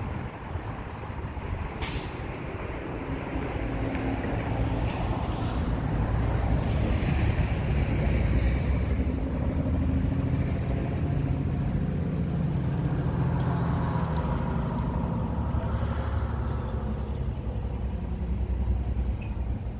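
A motor vehicle's engine rumble, swelling to its loudest in the middle and easing off near the end, with a short hiss about two seconds in.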